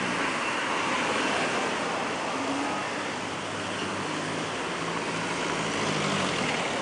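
City street traffic: cars driving past through an intersection close by, a steady wash of engine and tyre noise with a faint low engine hum.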